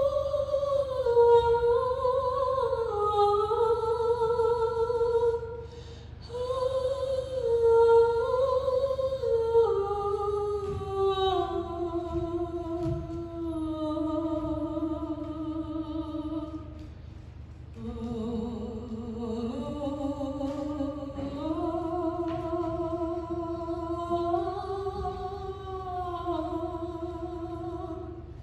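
A woman singing solo into a microphone: a slow melody of long held notes with vibrato and no instruments heard. It comes in three long phrases, with short pauses about six and eighteen seconds in.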